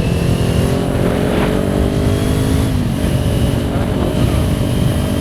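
Kawasaki Ninja 400's parallel-twin engine running on the move, over a heavy low rumble. Its pitch climbs slightly, then drops a little just under three seconds in.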